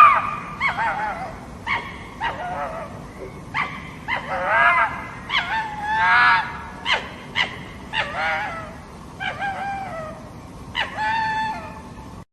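A dog whimpering and yipping: a run of short whining calls that bend up and down in pitch, broken by sharp yips, about one a second.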